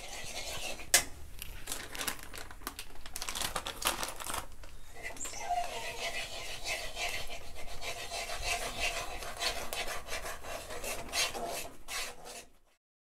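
A steel spatula scrapes and stirs around the inside of an aluminium kadai as ghee melts, with many small metal clicks. From about halfway, a plastic packet of gram flour crinkles as the flour is poured in. The sound cuts off abruptly just before the end.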